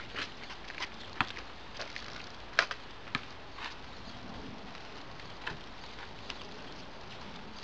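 Scattered, irregular sharp clicks and taps over a steady hiss, the loudest about two and a half seconds in.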